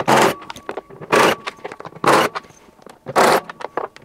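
Cordless drill-driver backing screws out of a washing machine's plastic outer tub, running in short bursts about once a second, four times, with small clicks and knocks between as it moves from screw to screw.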